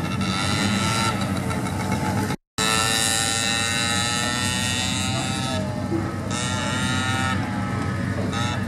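Small engine of a motorized armchair running as it drives off, its pitch wavering a little with the throttle; the sound cuts out for a moment about a third of the way through.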